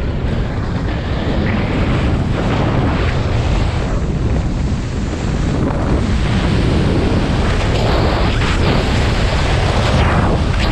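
Loud, steady wind rush buffeting the camera microphone as a speedrider skis fast downhill, with skis hissing over the snow in swelling rushes a few times.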